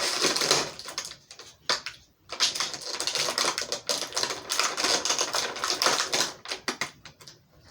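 Toy packaging being handled and opened by hand, a dense run of rapid crackling clicks, with a brief lull about a second in and only scattered clicks near the end.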